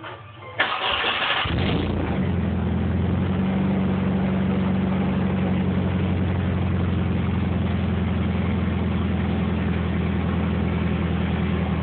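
Nissan 240SX engine starting on the new starter: a short crank about half a second in, catching cleanly within a second, then settling into a steady idle.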